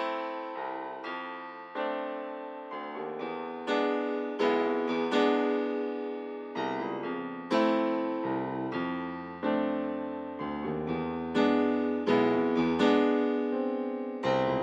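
Background piano music: a slow, calm melody of notes struck about twice a second, each ringing and fading away.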